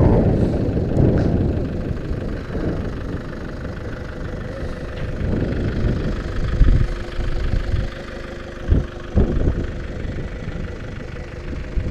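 Nissan Frontier pickup's engine running at low speed and then idling, heard as a steady low rumble with a few dull thumps in the second half.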